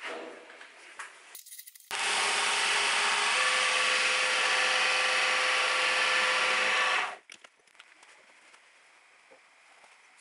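Metal lathe taking a cut across the face of a spinning metal disc: a steady, loud hiss of cutting with a steady tone in it, starting about two seconds in and stopping abruptly about five seconds later. Before it come a few light knocks of the part being handled.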